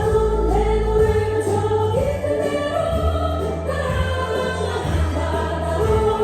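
Christian worship song with a choir singing over a steady band or orchestral backing and deep bass.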